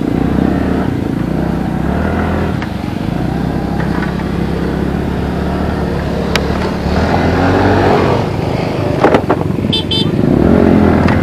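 Motorcycle engine running at low revs on a rough, rocky off-road trail, picking up revs twice, with a few sharp knocks about nine seconds in.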